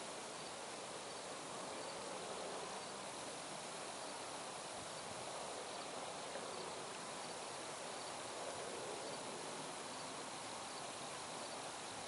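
Steady distant drone of a combine harvester working a cornfield, with a faint, high, evenly repeating insect chirping running through it.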